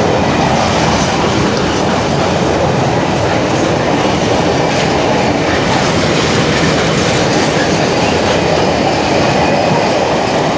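Freight train wagons rolling past at close range: a loud, steady rumble and clatter of steel wheels on the rails.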